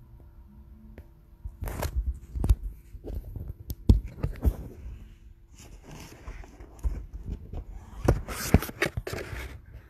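Handling noise from the recording phone being picked up and moved: several sharp knocks, the loudest about four seconds in, with rubbing and scraping against the microphone between them.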